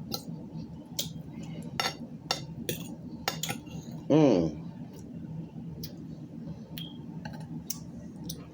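Cutlery clinking and tapping against a plate while someone eats, in scattered sharp clicks. A short, loud voiced sound from the eater comes about four seconds in.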